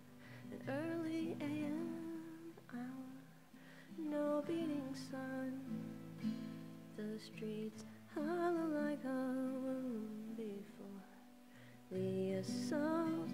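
Acoustic guitar played with a woman singing along into a close microphone, her voice gliding through a slow melody over the strummed and picked chords.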